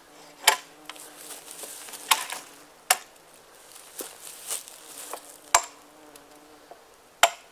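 Hatchet chopping branch stubs off wooden shelter poles: about six sharp strikes, irregularly spaced roughly a second apart. Between the strikes a fly buzzes near the microphone.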